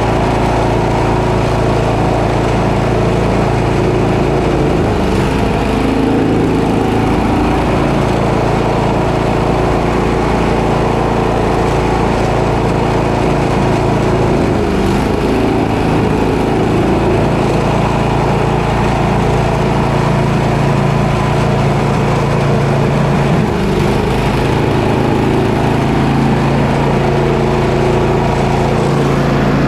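Snowblower's small gasoline engine running steadily at constant speed.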